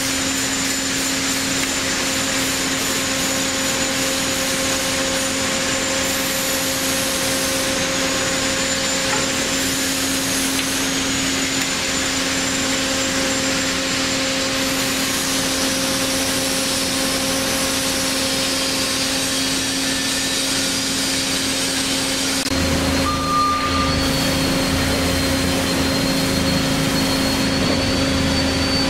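Hyd-Mech S-20A horizontal band saw running: a steady motor and hydraulic hum with a wavering high whine. About 22 seconds in the sound changes, with a deeper rumble and a new, steadier high whine.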